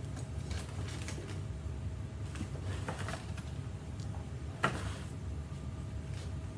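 Faint clicks and knocks of small objects being handled and rummaged through, with one sharper click a little past halfway, over a steady low hum.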